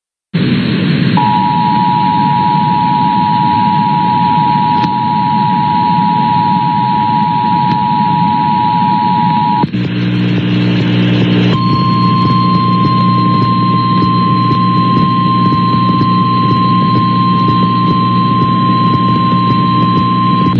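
Emergency Alert System alert tones for a tornado warning over heavy static hiss. The two-tone attention signal sounds for about eight and a half seconds, then stops, and a low buzzing hum comes in. About a second and a half later a single steady, slightly higher tone starts over the hum and runs on for about nine seconds.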